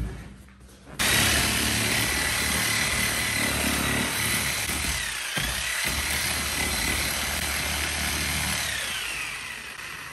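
A handheld power cutting tool, used to cut apart a vehicle seat, starts up about a second in and runs with a steady high whine. The whine dips briefly under load midway, then winds down and fades near the end.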